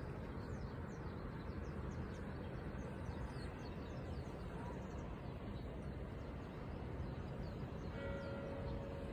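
Steady outdoor rumble with light bird chirps in the first half. About eight seconds in, a church bell strikes and rings on as a sustained tone.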